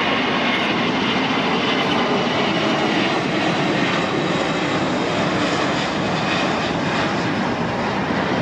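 Korean Air Airbus A380's four jet engines at takeoff thrust, a steady roar as the super-heavy jet lifts off and climbs out.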